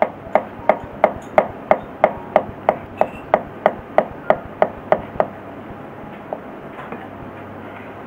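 Kitchen knife finely chopping shiso (ōba) leaves on a cutting board: evenly spaced knocks of the blade on the board, about three a second, stopping a little after five seconds in.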